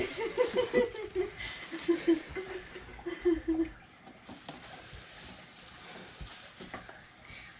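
Girls giggling and murmuring in short broken bursts for the first few seconds, then fainter rustling with a few light clicks.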